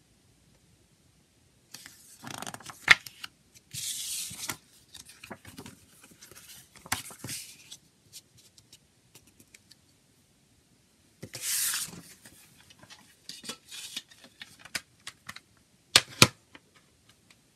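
A paper CD booklet being unfolded and handled, with several bursts of paper rustling and sliding. Near the end come two sharp clicks from the plastic CD jewel case.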